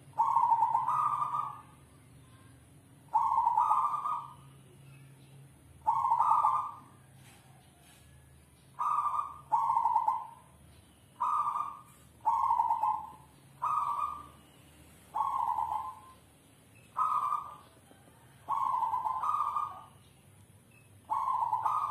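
Zebra dove (perkutut) singing in its cage: a short cooing phrase repeated about a dozen times, each phrase about a second long with brief pauses between.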